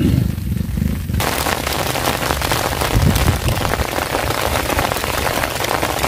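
Heavy rain pattering on open water, starting suddenly about a second in as a dense hiss of countless drops, over a low rumble.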